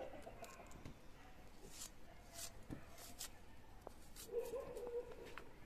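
Faint, crisp clicks of a small onion being cut against the fixed blade of a boti, a few separate cuts. A brief wavering animal call sounds over it about four seconds in.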